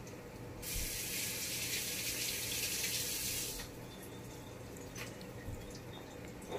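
Kitchen sink tap running into the sink for about three seconds, then shut off abruptly.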